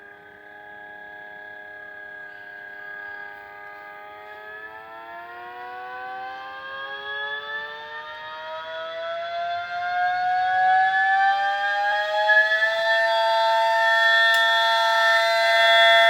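Mini 3D-printed replica of an ACA Howler siren winding up: its chord of several tones holds low at first, then about four seconds in starts rising steadily in pitch and growing louder, and levels off at full speed a few seconds before the end.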